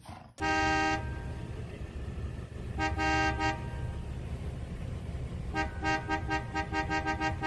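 Car horn sounding as a cat's paws press on the steering wheel: one honk of about half a second, a short group of quick honks about two and a half seconds later, then a fast run of short honks near the end.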